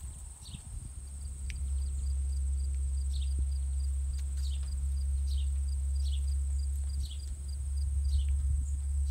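Summer outdoor ambience: insects drone steadily, high-pitched, with a fast pulsing chirp, over a steady low rumble, and short falling chirps repeat about once a second.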